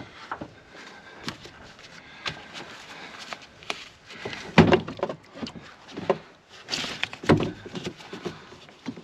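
Scattered knocks, clunks and scrapes of a truck battery and its heavy cables being worked into place by hand, with louder thumps about halfway through and again a little later.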